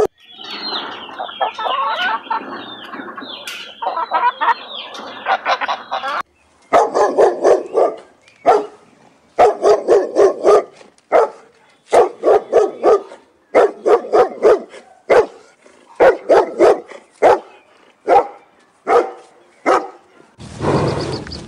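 Many birds calling at once for about six seconds, then a dog barking in repeated short bursts.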